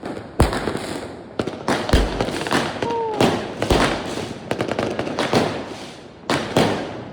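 Fireworks going off: aerial shells bursting with deep booms every second or two, with crackling between them.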